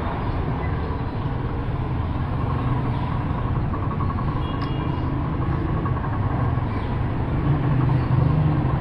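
Steady low mechanical hum, getting a little louder near the end.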